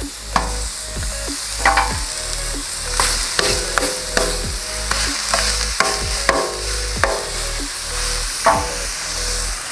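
Ground-beef patties sizzling on a hot flat-top griddle while a metal spatula presses and pats them flat. A dozen or so sharp metallic clanks ring out as the spatula strikes the cooking surface.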